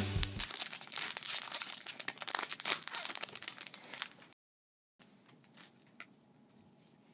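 Foil wrapper of a Japanese Pokémon TCG booster pack crinkling and tearing as it is opened, a dense run of crackles that cuts off abruptly after about four seconds, followed by faint clicks of cards being handled.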